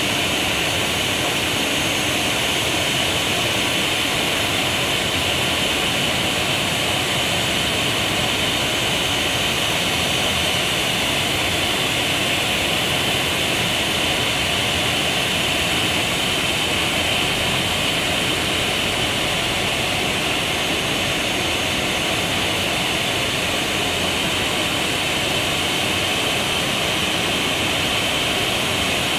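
Boeing 737-800's CFM56-7B jet engines running steadily at idle: an even rush with a constant high whine.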